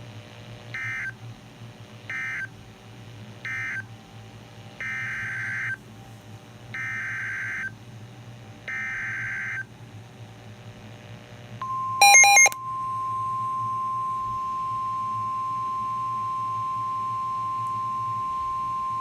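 NOAA Weather Radio SAME digital data bursts. Three short end-of-message bursts close the previous alert, then three longer header bursts, about a second each, mark the start of a new severe thunderstorm warning. About twelve seconds in, a brief loud beep sounds and the steady 1050 Hz weather radio warning alarm tone begins and holds.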